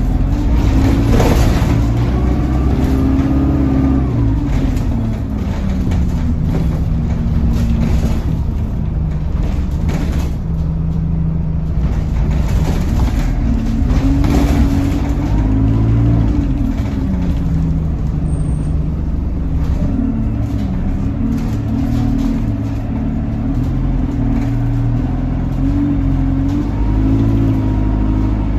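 Alexander Dennis Enviro200 single-decker bus heard from inside the passenger saloon: the diesel engine runs under a constant low rumble, its note rising and falling several times as the bus accelerates and eases off. A few short knocks and rattles come from the body.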